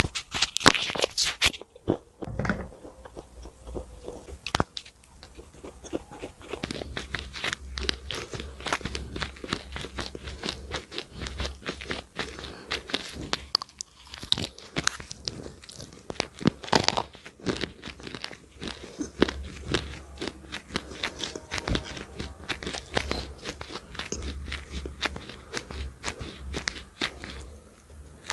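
Close-miked crunching bites and chewing of a thin, crisp snack, a dense run of sharp crackles with louder clusters as each new bite is taken.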